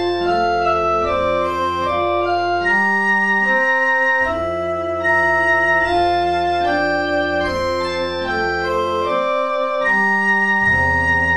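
Slow organ music: overlapping sustained notes moving in canon over a deep bass drone. The drone drops out briefly twice.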